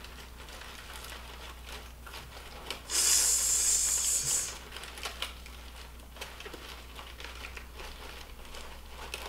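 Crinkling bag and crackling dry birch bark as handfuls of bark are pulled out of a tightly packed bag. Soft rustling throughout, with one loud crinkle lasting about a second and a half from about three seconds in.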